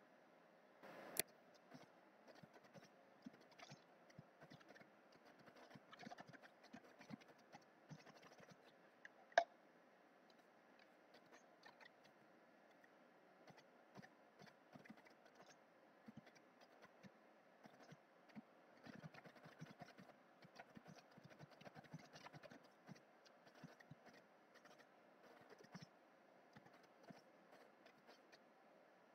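Faint, irregular clicking of typing on a computer keyboard, with two sharper clicks about one second and nine seconds in.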